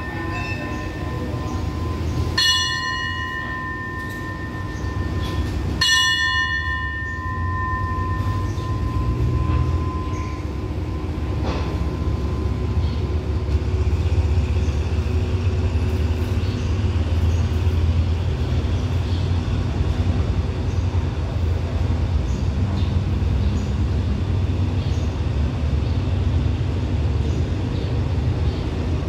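Brass station platform bell struck twice, about two and six seconds in, each stroke ringing out and fading over a few seconds: the departure signal for the train. Then the passenger train pulls out, its cars rolling past with a low steady rumble that grows louder after about twelve seconds.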